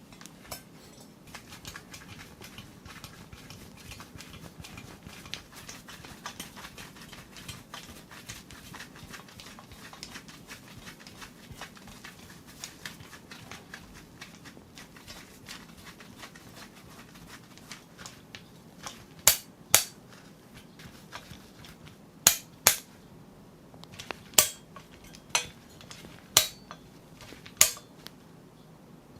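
PC parts being handled and fitted together: a steady patter of light clicks and taps, then from about two-thirds of the way in a series of loud, sharp snaps, some in quick pairs, like hard parts clicking into place.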